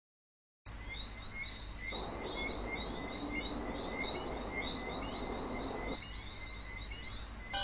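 Stock outdoor nature ambience, starting after a brief silence about half a second in: short high chirps repeating a few times a second over a steady high insect drone and a low background hum.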